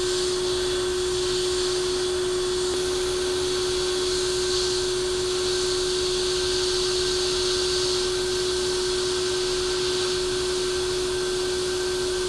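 Hakko hot air rework station blowing steadily, a constant whine over a rush of air, as it heats a tablet's charging port to melt its solder for removal.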